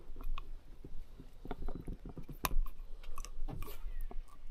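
Gloved hands handling a slimy northern pike: irregular wet clicks, crackles and rustles, with one sharper click about two and a half seconds in.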